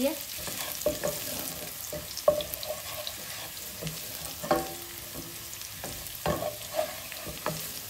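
Garlic-ginger paste and chopped green chillies sizzling in hot oil in a non-stick pot, stirred with a wooden spatula. The steady frying hiss is broken by a few sharper scrapes and knocks of the spatula against the pot, about every one to two seconds.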